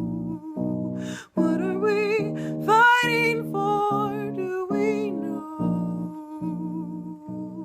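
Song with acoustic guitar chords under a woman's singing voice holding long, wavering notes that climb to a high point about three seconds in.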